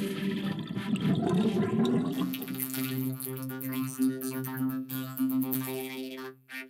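Effects-processed logo music: a warbling, watery swirl of pitched sound gives way after about two seconds to a steady droning chord, which fades and cuts out near the end.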